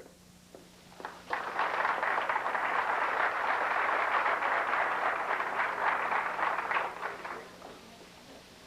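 Audience applauding after the last name on the list of inductees has been read. The clapping starts about a second in, holds steady, and dies away about a second before the end.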